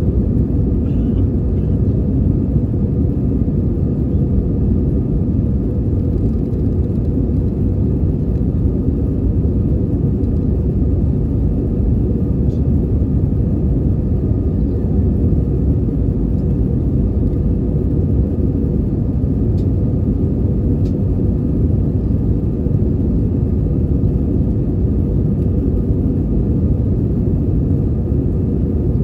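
Airbus A320 cabin noise during the climb, heard from a window seat over the wing: a steady, deep rumble of the jet engines and the airflow over the fuselage, with a faint steady whine above it.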